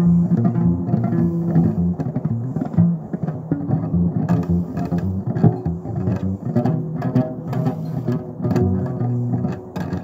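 Electric upright bass played pizzicato: a run of plucked low notes, the pitch changing from note to note as a bass line.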